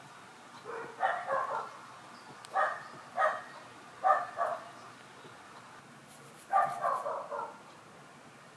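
A pet cat making a series of short calls, coming in several quick groups with a short pause partway through.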